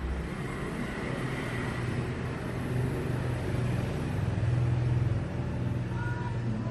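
A vehicle engine runs with a steady low hum that swells about four to five seconds in.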